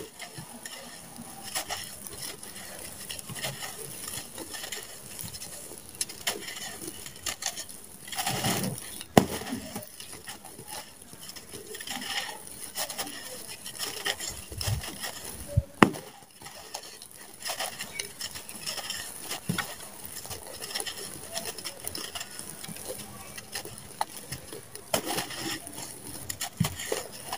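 Dry, stony sand-cement lumps crushed and crumbled in bare hands: a gritty crunching and crackling, with loose grains and pebbles pattering back onto the pile. A couple of sharper cracks stand out, about nine and sixteen seconds in.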